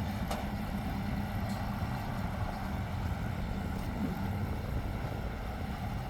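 Tractor engine running steadily as it drives a round baler, with a faint click about a third of a second in.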